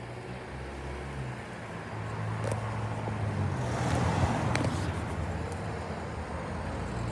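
A Mercedes-Benz Vito van driving past close by, its engine and tyre noise swelling to a peak about four seconds in, over the steady low hum of the bin lorry's diesel engine running. A sharp click sounds just after the peak.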